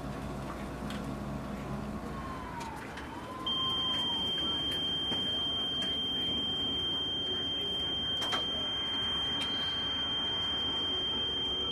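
A steady, high-pitched electronic tone starts about three and a half seconds in and holds without change, over faint room noise. Before it come two short squeaky chirps that rise and fall.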